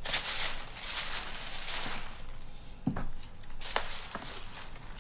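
Soft rustling and handling noise with a few light clicks, one about three seconds in and two close together near four seconds.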